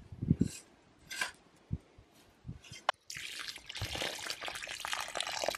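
A couple of soft thuds as a spade drops soil into a planting hole. Then, from about three seconds in, a stream of water pours and splashes steadily into a pool of muddy water in the basin around a newly planted sapling.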